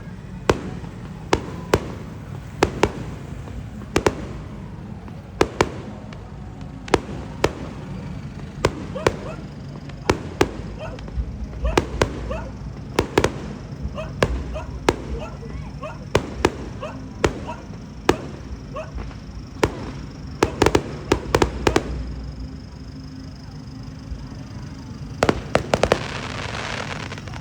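Fireworks going off in a string of sharp bangs, about one or two a second, with quick clusters of bangs about two-thirds of the way in and again near the end.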